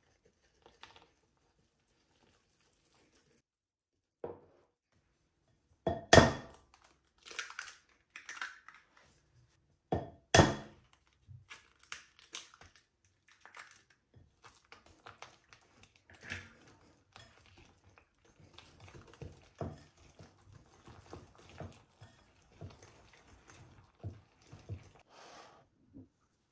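Two eggs cracked open, two sharp knocks about four seconds apart. Then a wire whisk stirs them with melted butter into flour in a glass bowl, with many small clicks and scrapes of the wires on the glass.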